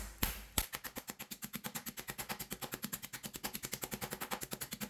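Metal meat tenderizer mallet pounding a chicken breast through baking paper on a kitchen counter, flattening it to an even thickness. A few separate blows at first, then a quick, even run of strikes, about six or seven a second.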